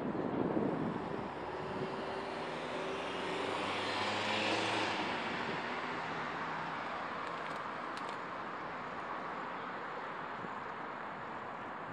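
Highway traffic on an interchange: a steady wash of road noise, with a vehicle's engine passing, loudest about four seconds in.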